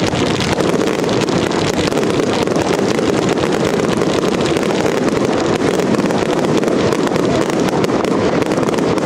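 A dense barrage of many F2 firework batteries firing together, rapid shots and crackling running into one continuous din.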